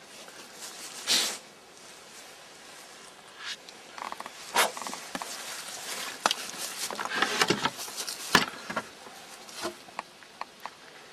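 Thick felt-tip paint marker scraping and squeaking across a peeled round log in short, irregular strokes as scribe lines are drawn. One strong stroke comes about a second in, and a busy run of strokes runs from about four to nine seconds in.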